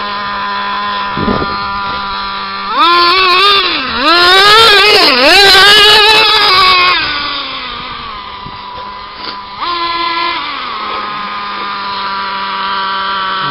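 Traxxas Rustler RC truck's motor running steadily, then revving up and down in quick bursts from about three to seven seconds in, where it is loudest, settling back, with another short rev near ten seconds in.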